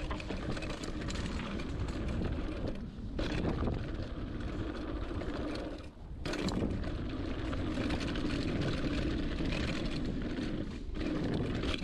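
Riding noise of a hardtail mountain bike descending a rough dirt trail: a continuous rush of wind on the camera mic and tyres on dirt, with knocks and clatter from the bike over bumps. It drops away briefly about three and six seconds in.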